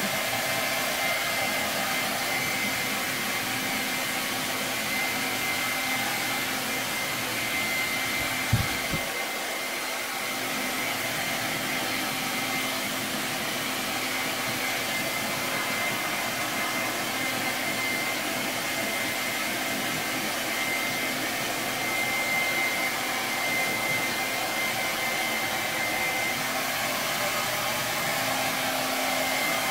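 Handheld hair dryer blowing steadily while drying a freshly bathed dog's coat, with a steady high whine over the rush of air. There is a brief knock about eight and a half seconds in.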